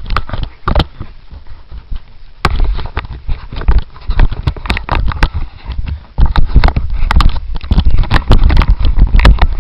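Wind buffeting the microphone on a boat under way, with a heavy rumble and a run of irregular knocks and thumps. The rumble gets louder about two and a half seconds in and again about six seconds in.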